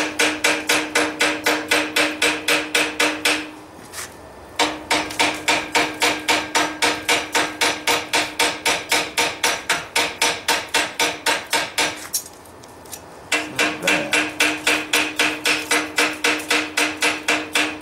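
Hand hammer striking a rod-handled chisel again and again, about three or four blows a second, cutting lines into a railroad spike's head clamped in a vise. Each blow rings with a steady metallic tone. The hammering comes in three runs, broken by short pauses about 4 s and 12 s in.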